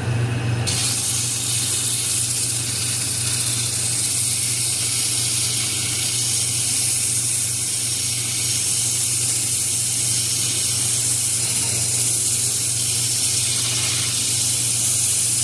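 Sandpaper pressed against a wood workpiece spinning on a wood lathe: a steady, loud hiss of abrasive on wood that starts about half a second in, over the lathe motor's steady low hum.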